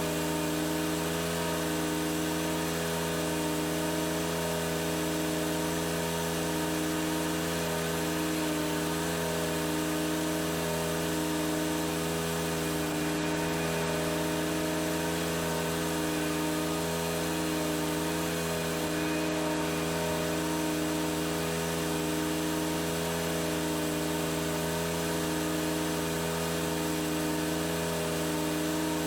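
Lawn tractor engine running steadily while mowing, an even hum with a faint regular swell about every second and a half.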